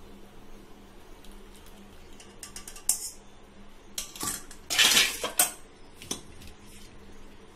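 An aluminium pan and a metal tea strainer knocking and clattering: a few quick light taps about halfway through, then a louder clatter of metal on metal as the pan and strainer are set down on the steel stove top.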